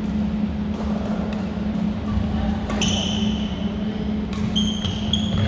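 Badminton rally on a wooden gym floor: sharp clicks of rackets striking the shuttlecock, and sneakers squeaking on the court about three seconds in and again near the end, over a steady low hum.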